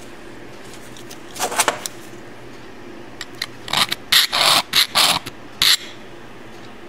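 Handling noise of a steel dial caliper and a steel plate in gloved hands: short scraping and rubbing sounds, a brief group about a second and a half in and a run of several louder ones from just under four seconds to near six, over a steady low background hum.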